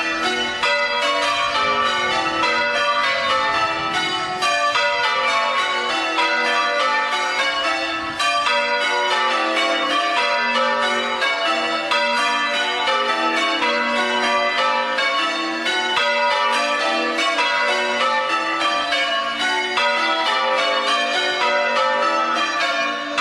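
Church bells rung in changes: a continuous, even run of bell strikes with no break.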